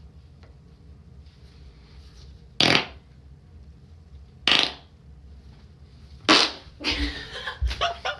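Three loud, short farts about two seconds apart, followed near the end by a quick run of shorter ones.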